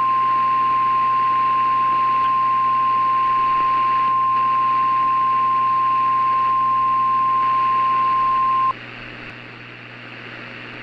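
NOAA Weather Radio warning alarm tone: a single steady beep near 1 kHz (the 1050 Hz alert tone) held for almost nine seconds, then cutting off sharply to a low hiss and hum.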